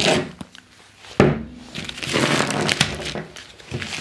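Plastic bag crinkling and rustling as it is gripped and opened by hand, with a sharp knock about a second in.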